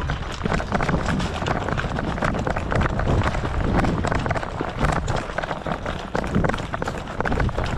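A player running in airsoft gear: quick, irregular footsteps with the rustle and knock of kit and heavy rumble on the microphone.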